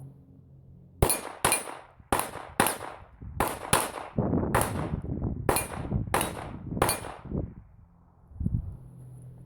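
Smith & Wesson Victory .22 LR pistol firing ten shots in quick succession over about six seconds, cycling each round without a stoppage: the owner says it ran flawlessly.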